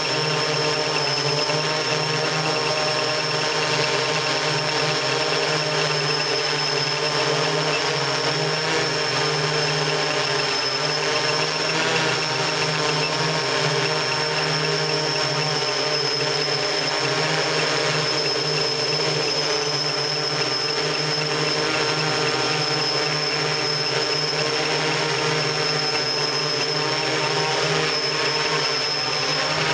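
Electric motors and propellers of an octocopter running steadily in flight, heard close up from on board: many steady humming tones with a thin high whine on top.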